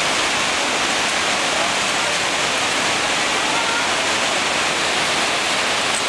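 Waterfall cascades and stream rushing over rocks: a steady, even rush of water.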